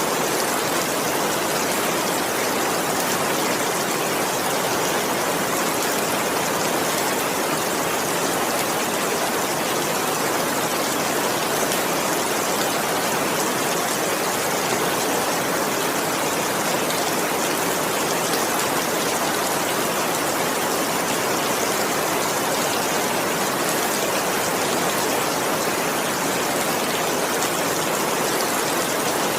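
Heavy rain falling steadily, a constant even hiss with no thunder.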